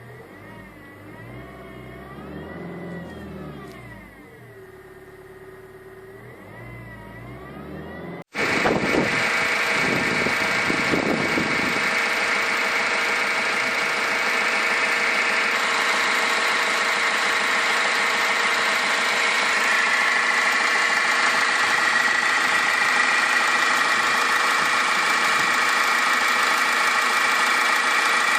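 2010 Toyota Yaris 1.4 D-4D diesel engine. For about the first eight seconds it is heard less close, its pitch rising and falling as it is revved. After a sudden cut it runs loud and close under the bonnet: a steady high-pitched whirring with a clatter, from the alternator, belt tensioner and water pump area, which a new alternator has not cured.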